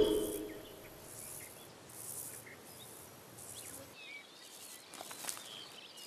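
Faint nature ambience of insects chirping in short high-pitched pulses about once a second, joined by small birds calling in short chirps from about four seconds in. Background music fades out at the very start.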